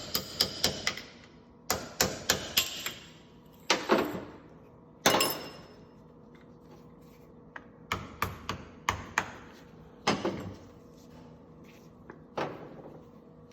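Hand-tool work on a motorcycle front fork tube while the chrome cap and dust seal are taken off: clusters of quick, sharp taps and clicks, broken by a few short scraping bursts.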